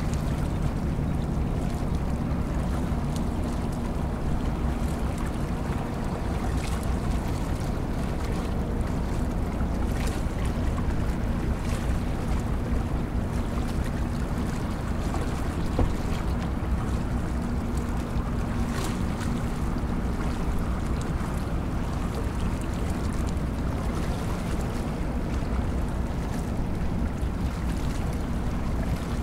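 Harbour tugboats' diesel engines running with a steady low drone.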